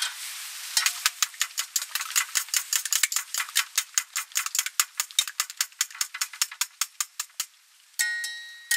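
Wire whisk beating eggs in a stainless-steel bowl: rapid clicks of metal against the bowl, about six a second, stopping a little after seven seconds in. Near the end the bowl rings once with several clear tones that die away.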